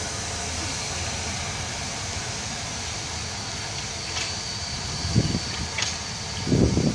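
Rebuilt West Country Class steam locomotive moving slowly away: a steady hiss and rumble of steam and rolling wheels with no distinct exhaust beat. Gusts of wind on the microphone near the end are the loudest sound.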